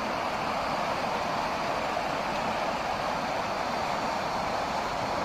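Flood-swollen Missouri River rushing around bridge piers in a strong current: a steady, even rush of water.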